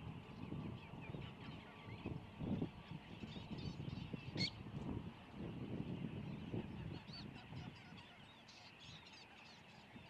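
A chorus of many waterbirds calling at a distance, a steady babble of overlapping calls, with one sharper, louder call about four and a half seconds in. It grows quieter near the end.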